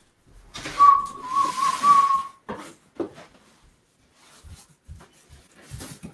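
Cardboard scraping and rustling as a large inner box is worked against its shipping carton, with a steady high squeak lasting about a second and a half; then a few light knocks and taps of cardboard being handled.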